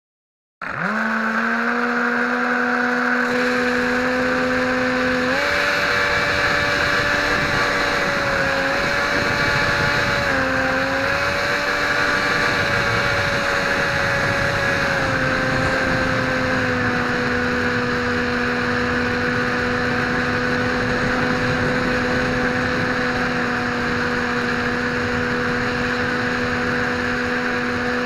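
Brushless electric motor and propeller of a Dynam Hawk Sky RC plane starting up from silence and running with a steady whine over a rush of air. The pitch steps up about five seconds in, wavers briefly, then drops back to a lower steady pitch about fifteen seconds in as the throttle is eased.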